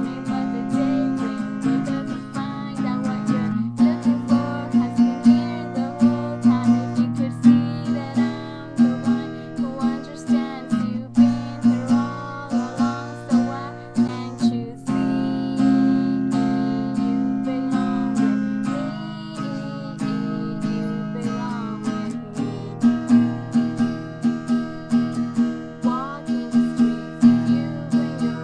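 Acoustic guitar strummed in a steady rhythm, with a young woman singing along. The strings are worn out, which gives the guitar a dull, muted tone.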